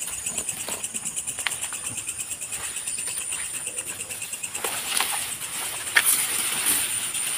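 Insects, likely crickets, chirring in a steady, high, rapidly pulsing chorus, with a few short knocks and rustles about two-thirds of the way through.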